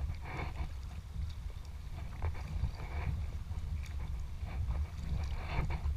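Kayak paddle strokes splashing in the sea at irregular moments, over steady low wind noise on the action camera's microphone.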